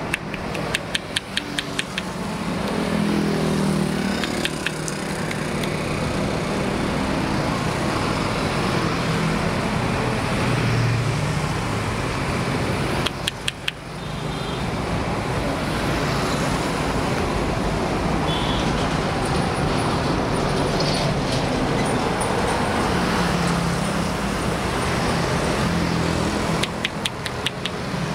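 Steady road traffic from a busy highway, vehicles passing with a heavier low rumble at times. Short runs of rapid clicks come near the start, about halfway and near the end.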